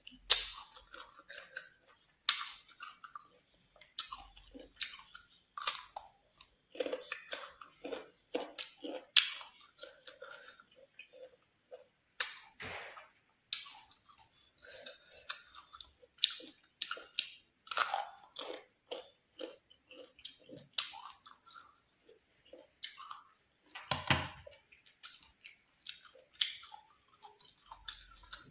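Close-up chewing of crisp green mango, with irregular sharp bites and crunches throughout.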